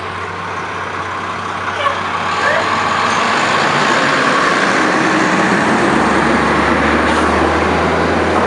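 Diesel fire trucks pulling out of the station. A pumper's engine grows louder as it drives past close by, then the Freightliner cabover ladder truck's diesel adds a steady low rumble near the end as it rolls out.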